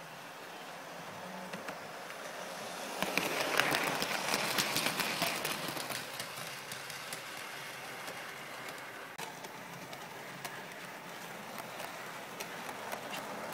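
An OO gauge model train running on the layout's track, its wheels clicking irregularly over the rail joints. The sound swells about three seconds in, then eases to a steady run.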